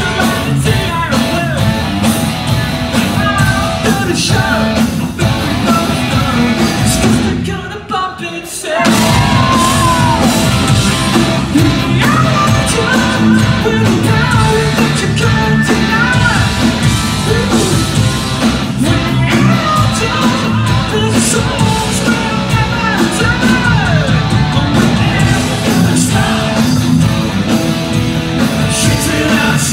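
Rock band playing live: distorted electric guitars, bass and drums with a singer's voice over them. About eight seconds in the band cuts out for roughly a second, then crashes back in.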